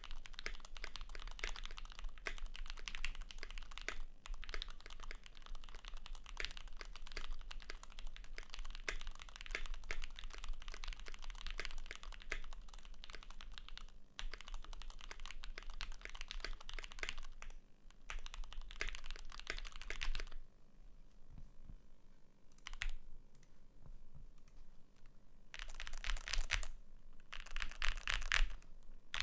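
Fast, continuous typing on a Keychron Q1 mechanical keyboard with a steel plate, lubed Gateron X switches, GMK keycaps and a tape mod. It stops about twenty seconds in, with one brief burst during a pause of about five seconds, then two short runs of typing near the end.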